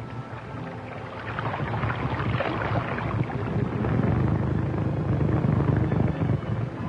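Small motorboat's engine running with a low rumble, growing louder about halfway through and cutting off abruptly at the end.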